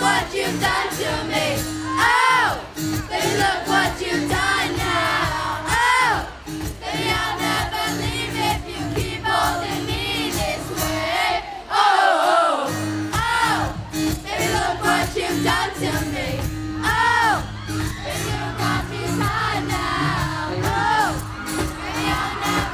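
Crowd of fans screaming and cheering, with high shrieks rising and falling again and again over music from the loudspeakers.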